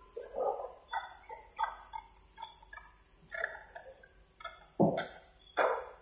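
Hand-lever strapping tensioner being pumped, its metal ratchet clicking and clanking in irregular strokes as it draws a plastic strap tight around a bundle of sawn boards. Two louder clanks come about five seconds in.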